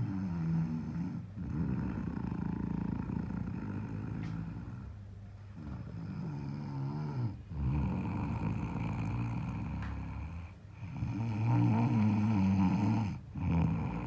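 A person snoring in a steady rhythm, about five long snores with brief pauses between them, the loudest near the end.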